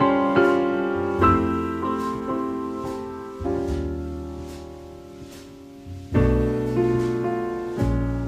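Background music: a slow piano piece of struck chords left to ring and fade, softer in the middle, with a loud chord about six seconds in.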